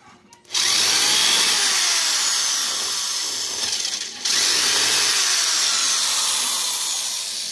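Handheld corded electric screwdriver running in two long runs, with a short break a little past the middle.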